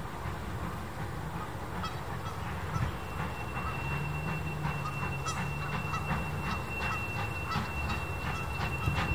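Steam locomotive approaching from a distance: soft, regular chuffs about two to three a second, growing louder, with a steady high-pitched squeal joining about three seconds in.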